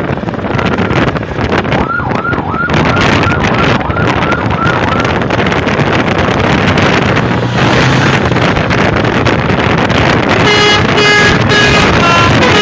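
A bus passing close by, its engine and rushing air loud throughout. About two seconds in, a quick series of short chirping tones repeats about three times a second for some three seconds.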